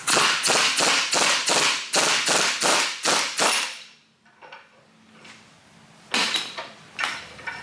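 Pneumatic impact wrench hammering in fast bursts of about five a second on the screw of a C-frame ball-joint press. It is forcing a worn, stuck spherical ball joint out of a BMW E36 SLR angle-kit control arm. It stops after about four seconds, and two sharp metal clunks follow near the end.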